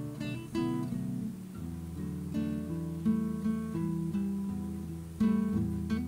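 Background music played on acoustic guitar: plucked notes and strummed chords changing every half second or so, with a louder chord about five seconds in.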